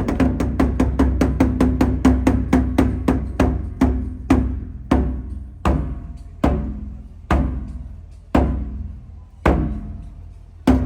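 Nagado-daiko taiko drums struck in a steadily slowing run: strokes at several a second at first, spreading out to about one a second, each with a deep boom and a sharp crack, the last a single hard hit near the end.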